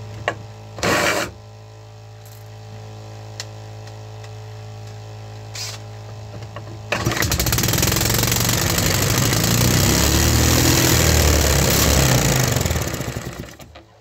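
A homemade 3D-printed single-cylinder petrol engine fires up about seven seconds in and runs loud and fast at wide-open throttle for about five seconds, then dies away near the end, which the builder takes for the moment the piston ring failed and let compression into the crankcase. Underneath, the fuel pump and water pump hum steadily, and there is a short burst of noise about a second in.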